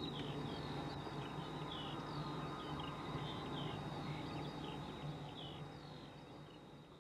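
Small birds chirping, many short quick calls over a faint, steady low hum of outdoor ambience, fading out near the end.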